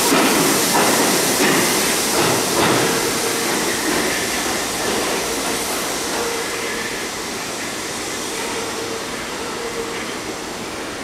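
Bombardier-built R62A subway train pulling away into the tunnel. Its wheels knock over rail joints a few times in the first few seconds, and its running noise fades steadily as it recedes.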